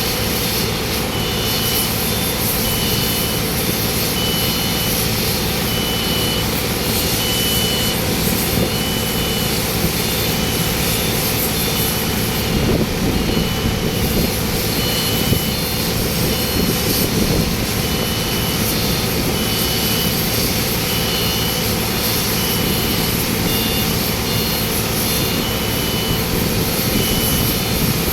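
Steady, loud machinery running, with a high beep sounding on and off in short dashes.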